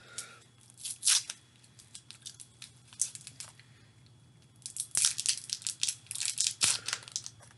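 Crinkly plastic wrapper of a hard-candy packet being torn open and handled: a few scattered crackles, then a dense run of crinkling and tearing about five seconds in.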